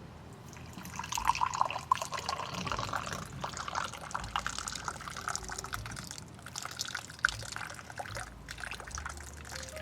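Hot mint tea poured from a teapot into a glass: a splashy, trickling pour starting about a second in, its pitch rising as the glass fills.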